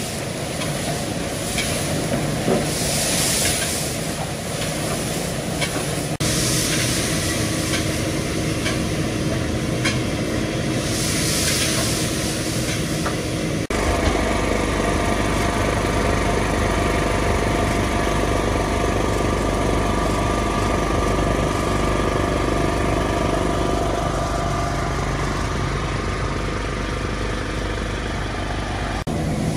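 Meat frying with a steady hiss of steam in a large cauldron as it is stirred. About halfway through this gives way to a steady low rumble of cars driving along a wet street.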